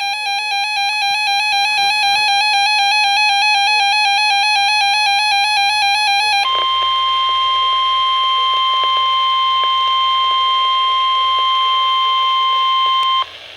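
A weather radio's built-in alarm beeping in a rapid pulsing pattern for about six seconds. Then the steady 1050 Hz NOAA Weather Radio warning alarm tone sounds; it cuts off abruptly shortly before the end. Together the tones signal an incoming alert, here a tornado watch.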